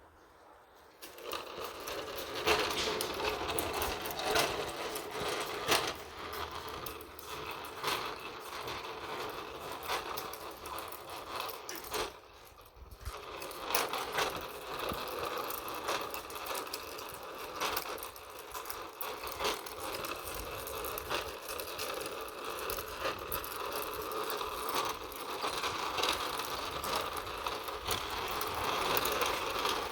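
Continuous rattling and scraping with many small clicks from an old upright vacuum cleaner being moved along the ground, with a short lull about twelve seconds in.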